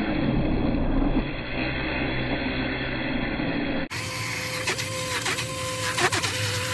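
Hotsch rechargeable portable blender running, its small motor chopping spinach and water into a green smoothie in the bottle. After a cut about four seconds in, the motor is a steady whine at two pitches, with a few knocks as the bottle is moved about.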